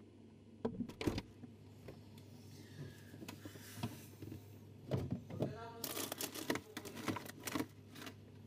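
Refrigerator door opened with a couple of sharp knocks about a second in, then containers and packages on the fridge shelves being handled: scattered clicks, taps and rustles that grow busier after about five seconds, with a short pitched sound in the middle of that run.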